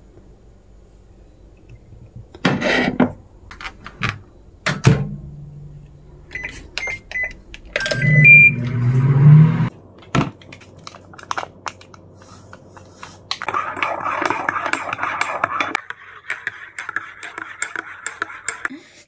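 A microwave oven door is handled with a few knocks and clicks, and the microwave beeps several short times. A coffee sachet then rustles as it is emptied into a ceramic mug, and near the end a metal spoon stirs the drink with light rapid clinks against the mug.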